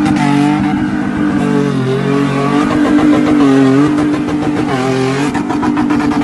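Pickup truck engine revving hard through open exhaust headers. Its pitch rises and falls several times as the throttle is worked.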